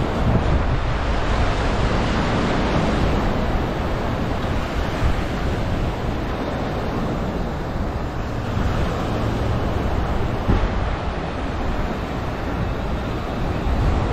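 Small waves breaking and washing up a sand beach, with wind buffeting the microphone, and a brief low thump about ten seconds in.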